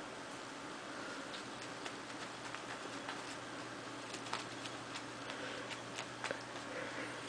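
Ragdoll cat wrestling a fabric catnip banana toy on carpet: scattered small clicks and scratches at irregular intervals as it bites and kicks at the toy, over a steady faint hum.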